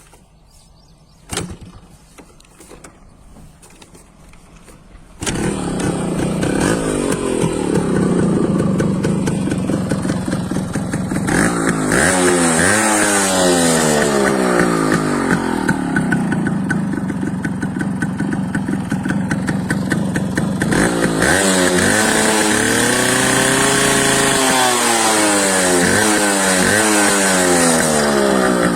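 Yamaha two-stroke motorcycle engine, coming in suddenly about five seconds in and then running loudly, revved several times with its pitch rising and falling.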